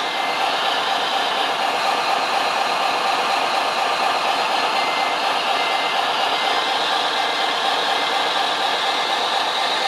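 Steady whirring hum of small electric motors from remote-control model machines running.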